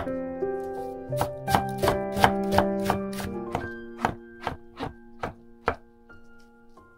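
Chef's knife chopping vegetables and mushroom on a wooden cutting board: sharp knocks about two to three a second, spacing out and stopping about six seconds in. Background music plays under the chopping and fades low near the end.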